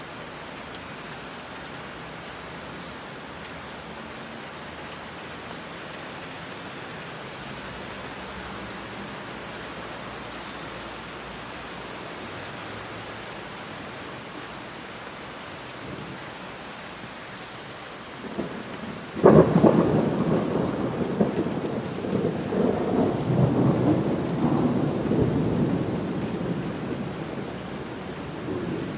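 Heavy rain falling steadily. About two-thirds of the way through, a clap of thunder cracks suddenly and rumbles on for several seconds before fading back under the rain.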